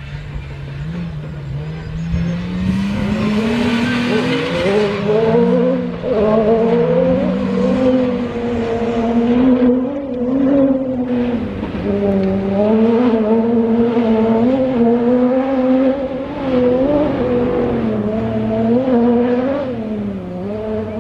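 An off-road competition vehicle's engine revving hard under load, its pitch rising and falling again and again as the driver works the throttle. A burst of hiss rises over it from about three to five seconds in.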